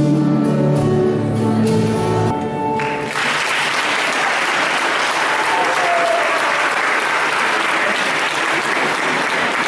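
A song's accompaniment ends on its last held notes, and about three seconds in an audience breaks into applause that continues steadily.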